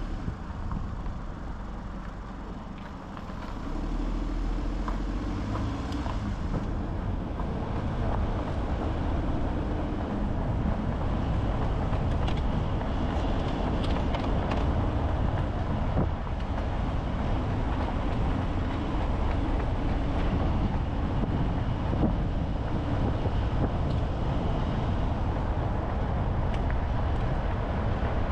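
Car driving: steady engine and tyre road noise, growing louder about four seconds in as it picks up speed, then holding steady.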